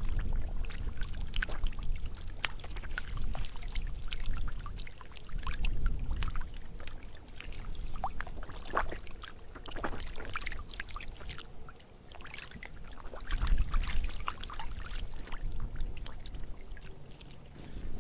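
Fish thrashing in shallow, weedy water: a steady scatter of short wet splashes and slaps. Low rumbles come now and then.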